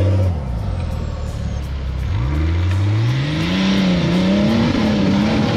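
Off-road 4x4's engine revving under load. The engine note drops to a low hum just after the start, climbs steeply from about two seconds in, then swings up and down several times.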